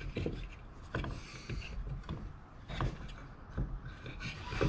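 Light plastic clicks, taps and rubbing from hands working a return spring into a plastic accelerator pedal sensor housing, a few separate clicks a second or so apart.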